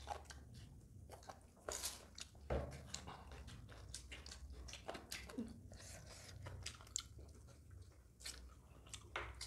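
Two people eating chicken curry and rice by hand: irregular biting, chewing and crunching on chicken pieces, with short wet mouth clicks and squishing of rice between the fingers.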